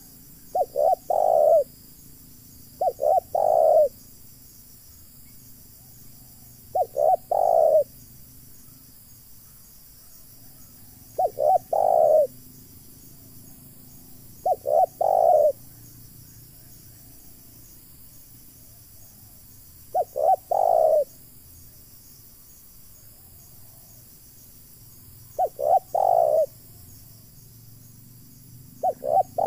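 Spotted dove cooing: about eight phrases, each two quick short notes then a longer rolling coo, repeated every two to six seconds.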